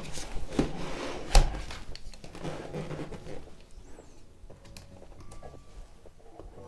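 Cardboard graphics-card retail box being handled and turned over by hand, with one sharp thump about a second and a half in as it is set down flat. Lighter rustling and scraping of the cardboard follow, growing fainter.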